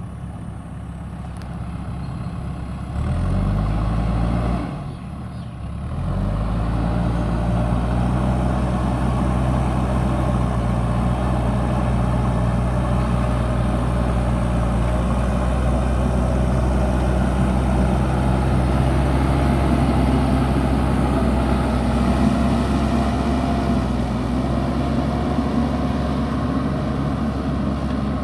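JCB backhoe loader's diesel engine revving up about three seconds in, easing off briefly, then revving again and running steadily at high revs.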